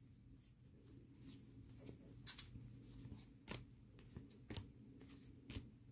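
Faint, irregular soft clicks and swishes of Topps baseball cards being slid one by one off a stack by nitrile-gloved hands.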